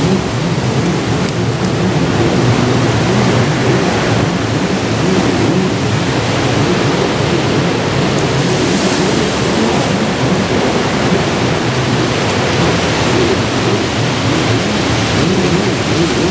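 Steady noise of breaking ocean surf, with wind rumbling and buffeting on the microphone.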